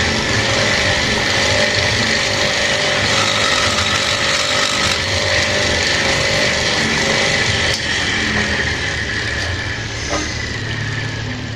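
A small electric power tool, likely the drill used for porting, running steadily with a high whine. It gets quieter about eight seconds in, and the whine sinks slightly near the end as if the motor is slowing.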